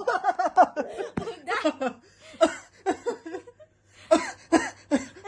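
A small child laughing, first in a run of pitched giggles, then in short separate bursts with pauses between them.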